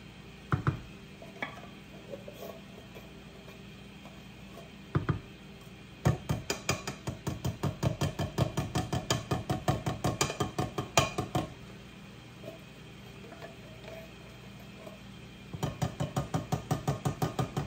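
Wooden spoon stirring ground beef and tomato sauce in a skillet, knocking against the pan. A few single knocks come first, then a fast, even run of about four knocks a second, a pause, and another run near the end.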